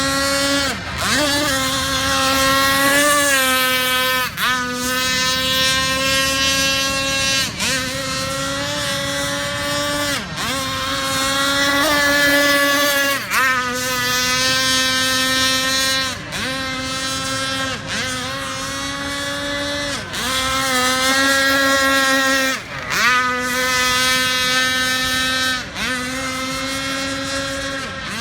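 RC speedboat motor running flat out with a high, steady whine, its pitch dipping sharply and coming straight back up every two or three seconds, about ten times.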